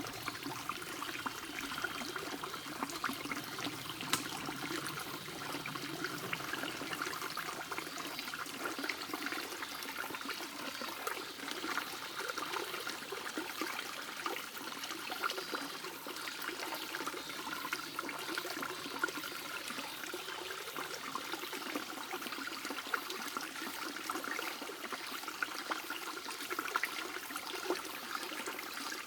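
Shallow mountain stream babbling over stones, a steady trickling and splashing flow.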